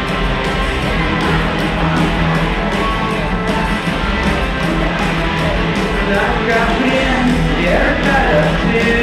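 Rock band playing loud live, with guitar, drums and singing.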